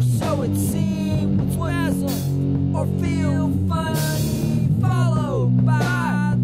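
Indie rock / heavy metal song playing, with guitar over a steady bass line.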